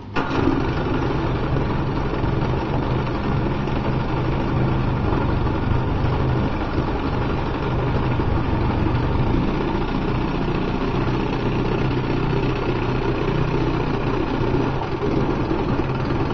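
1969 Evinrude 25 HP two-cylinder two-stroke outboard running steadily at low speed, its lower unit in a tub of water. It comes in suddenly right at the start.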